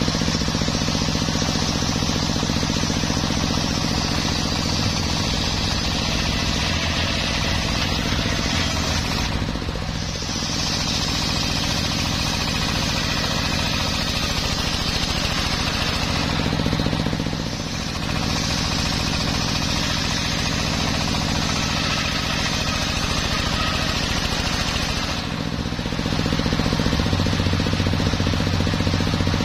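Large circular sawmill blade ripping lengthwise through a teak log: a loud, steady rasping cut over the hum of the motor driving the blade. The cutting noise drops away briefly three times, about ten, seventeen and twenty-five seconds in, leaving the machine's hum.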